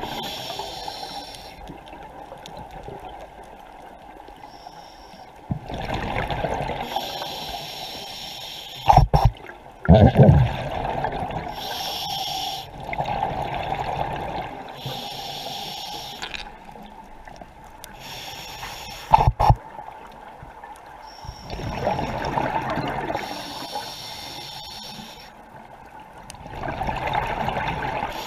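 Scuba diver breathing through a regulator underwater: a hiss on each inhale and a rush of exhaled bubbles, coming back every few seconds. Several loud thumps stand out near the middle.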